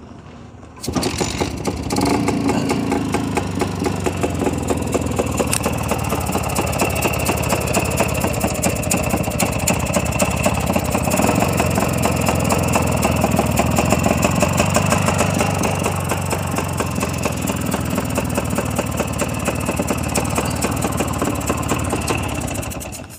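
Single-cylinder engine of a three-wheeled cargo motorcycle starting about a second in and running steadily at idle, then switched off right at the end.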